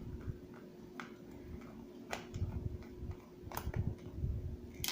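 Small Phillips screwdriver backing a screw out of a plastic gearbox housing: four sparse, faint clicks about a second apart, with soft handling knocks.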